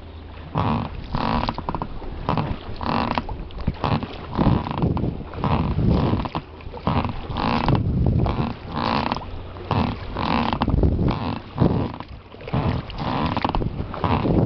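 An inflatable boat being rowed: oar strokes in the water and the oars working in their oarlocks, repeating unevenly about once a second.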